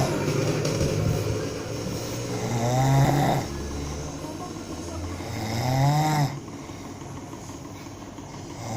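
A person snoring loudly, with a pitched, rising snore on each in-breath about every three seconds.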